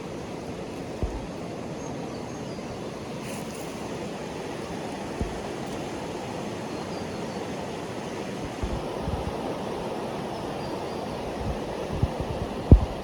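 Steady rushing of flowing creek water, with a few dull low thumps, the loudest near the end.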